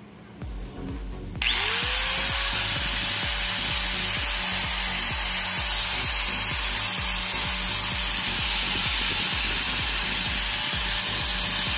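Bosch angle grinder switched on about a second and a half in, its motor whining up to speed and then running steadily with no disc fitted. It is a test run after a repair: the newly replaced cooling fan is blowing air through the grinder again, and the sound is different from before.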